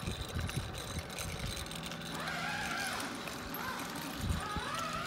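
A young child's high, drawn-out vocal sounds, twice, each rising and then falling in pitch, over low outdoor background noise.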